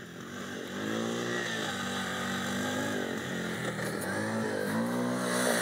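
ATV engine revving up and easing off several times as the quad rides closer, getting louder over the first second.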